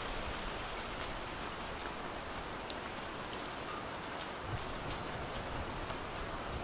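Steady rain: an even hiss with many separate drops ticking on surfaces.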